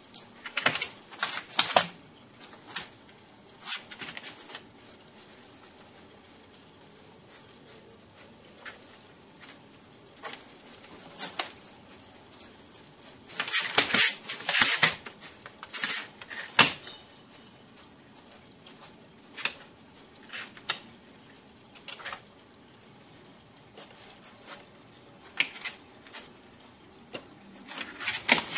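A pet skunk scrabbling about in a box after crickets: irregular scratches, taps and rustles, busiest about halfway through.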